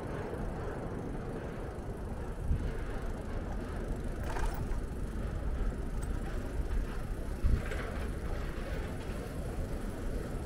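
City street traffic noise with a steady low rumble, heard from a moving bicycle, with two brief thumps about two and a half and seven and a half seconds in.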